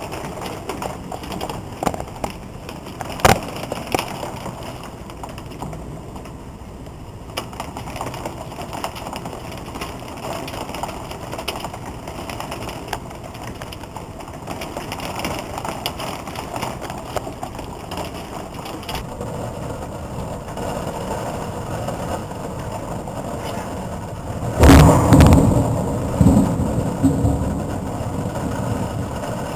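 Heavy rain falling steadily, with scattered sharp clicks of drops or hail striking. About 25 seconds in, a loud clap of thunder breaks out and rumbles for a couple of seconds.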